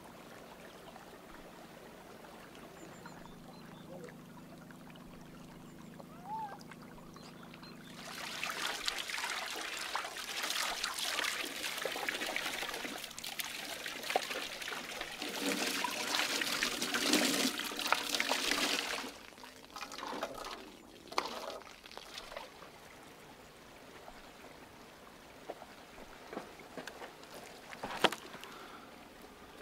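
Water from a garden hose pouring and splashing over a large hanging fish as it is rinsed: it starts about eight seconds in, runs for roughly ten seconds, is strongest just before it stops, and a few short splashes follow.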